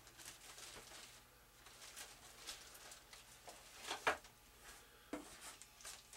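Faint rustling and light handling noises of plastic-wrapped model parts and paper being unpacked, with a sharper click or knock about four seconds in.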